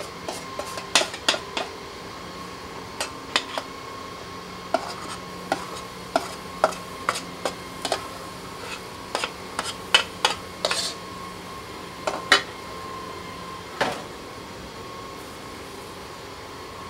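Metal utensil clinking and tapping against cookware in many irregular, sharp clicks, over a faint steady tone.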